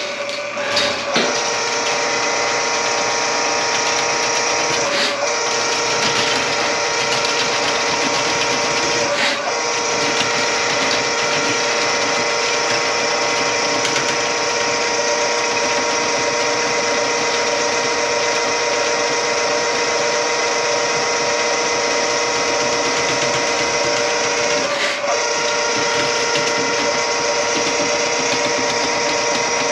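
Electric drain-cleaning machine (power auger) motor running steadily to clear a grease clog in a kitchen sink drain line, with a few brief dips in its sound.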